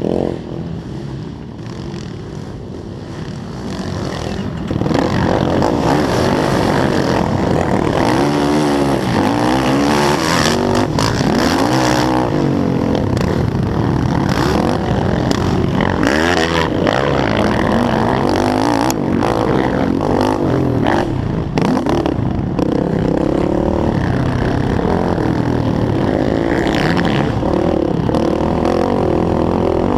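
Yamaha YFZ450R quad's single-cylinder four-stroke engine revving up and down as it is raced. It jumps much louder about five seconds in and keeps rising and falling in pitch after that.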